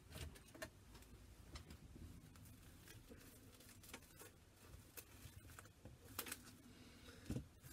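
Faint rustling and snipping of cling film being handled and cut with scissors, with scattered small clicks; the loudest are a couple of sharper knocks near the end.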